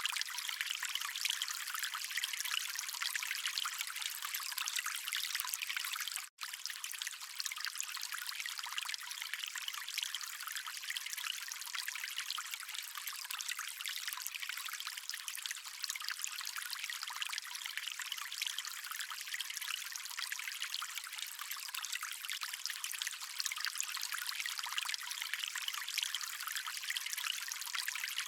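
Flowing stream water: a steady, bright trickling and splashing rush with almost no low end. It cuts out for a split second about six seconds in.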